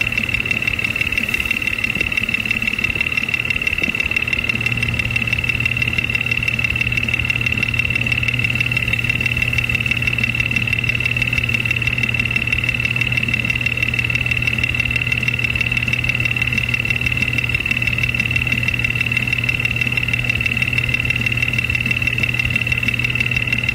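Jeep Cherokee 4.0L inline-six engine idling with a rapid, steady ticking knock while the number 5 spark plug wire is pulled off to kill that cylinder. The owner suspects the knock may involve the number 5 cylinder's combustion chamber or piston.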